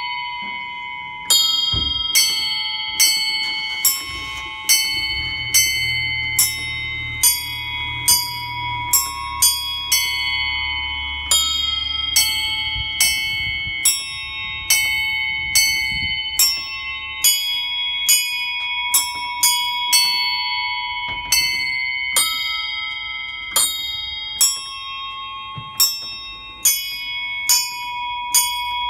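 Small bronze bells of a miniature bell tower, hanging still and struck in turn by electric hammers, playing a tune: clear strokes about one to two a second at several pitches, each left to ring on. A low hum runs underneath for several seconds in the first half.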